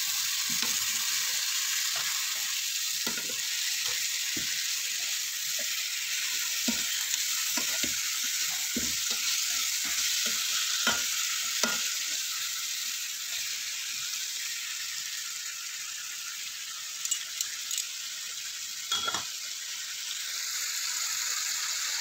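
Chicken pieces sizzling as they fry in oil in a nonstick pan, with short clicks and taps of metal tongs against the pan as the pieces are turned, mostly in the first half.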